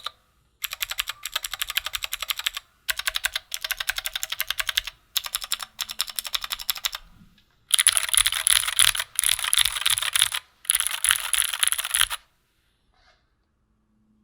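Fast typing on a Keychron Q2 mechanical keyboard fitted with clicky Gateron G Pro Blue switches: rapid runs of keystrokes broken by short pauses. The last runs, from about 8 to 12 seconds in, are louder, and the typing stops about two seconds before the end.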